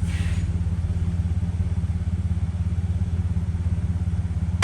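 2008 Dodge Caravan's 3.3 L V6 idling, its exhaust pulsing steadily; the engine has an intermittent cylinder-3 misfire (code P0303) that makes it shake. A single sharp knock right at the end.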